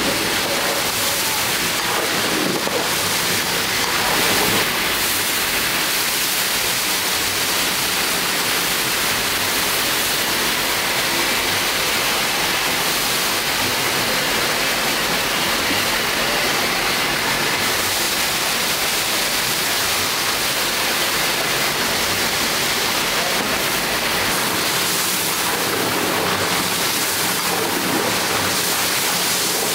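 Mutton pieces sizzling in hot oil in a large steel kazan as a ladle stirs them, a steady loud hiss. Around the middle, water poured in from a kettle hits the hot pan and sends up steam, and the hiss gets brighter for a few seconds.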